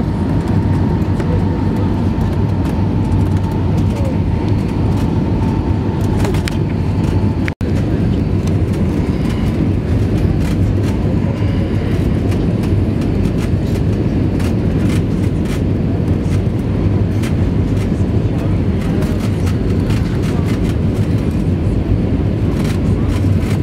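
Steady, loud airliner cabin noise inside an Airbus A320 on final approach: deep rumble of the engines and rushing airflow, with faint rattles. The sound cuts out for an instant about seven and a half seconds in.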